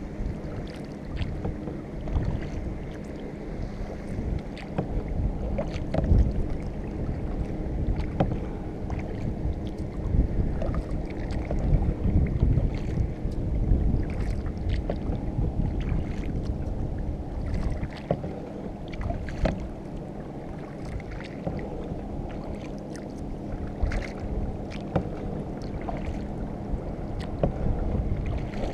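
Kayak paddle strokes: the blades dipping and pulling through calm water, with irregular drips, small splashes and light knocks, and wind on the microphone.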